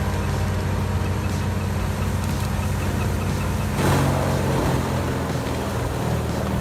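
Heavy machine's engine running steadily under load, with a brief louder surge about four seconds in.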